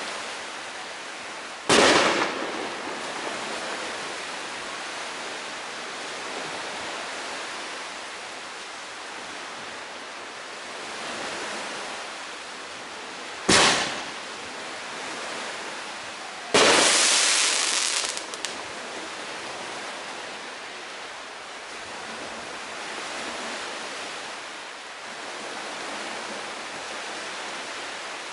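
Fireworks going off: a sharp bang about two seconds in that dies away over a couple of seconds, another short bang about halfway through, and a louder, longer blast a few seconds later that breaks up into a few sharp cracks. A steady hiss runs underneath.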